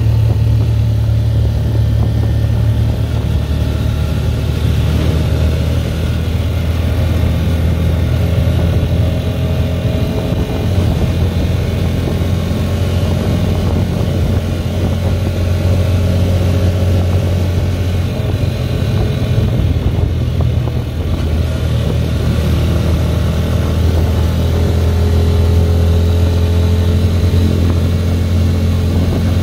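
Motorcycle engine of a motorized tricycle running steadily while under way, its low engine note shifting slightly a few times.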